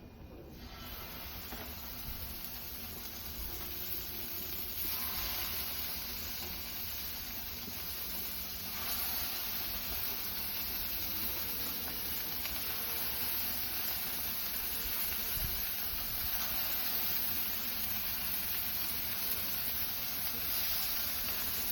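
Turkey breast mince sizzling on a Blackstone flat-top griddle: a steady frying hiss that grows louder over the first several seconds, then holds.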